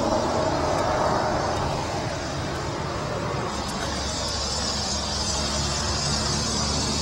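Steady traffic noise from a nearby highway. A higher hiss joins in about halfway through.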